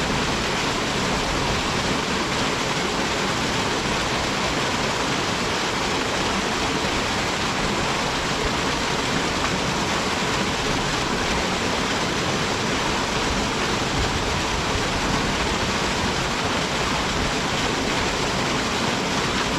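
Waterfall pouring into its pool, a steady, unbroken rush of water heard close to the water's surface.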